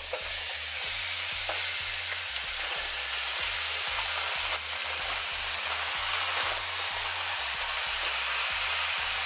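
Marinated goat meat being poured into hot oil with burned curry powder, sizzling steadily as it hits the pot. There is a brief lull about halfway through.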